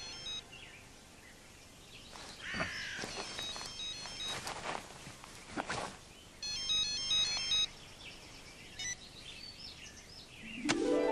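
A mobile phone sounding a short electronic tune of high stepped beeps, briefly at the start and again for about a second around six and a half seconds in. Between them come scattered faint high chirps and clicks.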